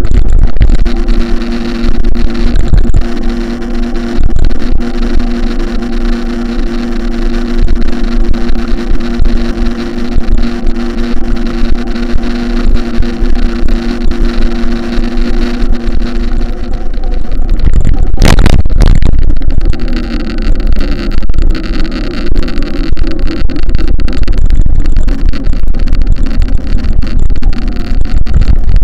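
A motor running at a steady pitch over heavy low rumble, with a loud noisy burst about 18 seconds in, after which the steady pitch gives way to rougher noise.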